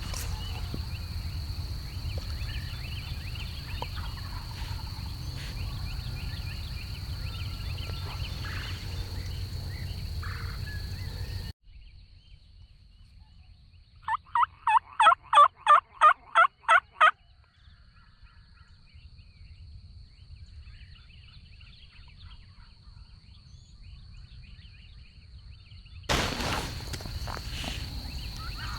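A close series of about a dozen turkey yelps, roughly four a second for some three seconds, each note a short two-tone call. Faint chirps of small birds are in the background.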